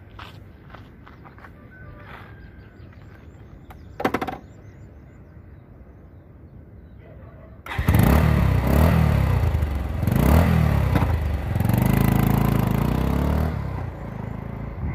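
Bajaj Pulsar 150 motorcycle's single-cylinder engine starting suddenly about eight seconds in, after a quiet stretch broken by one short knock. It revs up and down as the bike pulls away, then fades near the end.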